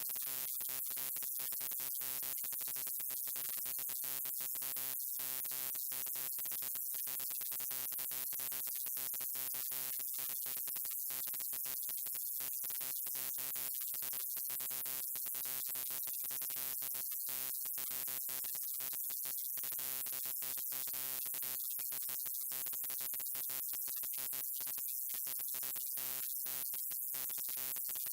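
Neon light buzzing: a steady electrical hum with many overtones and a hiss above it, cutting out briefly and irregularly many times a second.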